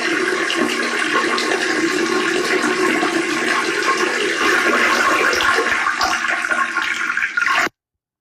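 Peeing sound effect: a steady stream of urine splashing into toilet bowl water. It cuts off abruptly near the end.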